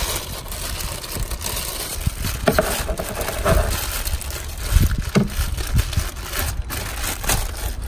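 Irregular clicks, knocks and rustling of hands and tools working on a car, with a low rumble underneath.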